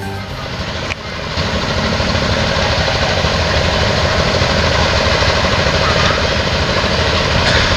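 Steady low engine rumble of a diesel train approaching the crossing unseen. It swells over the first couple of seconds, then holds steady.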